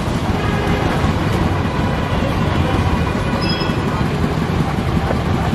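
Steady roadside traffic noise with a low rumble, running evenly with no clear speech over it.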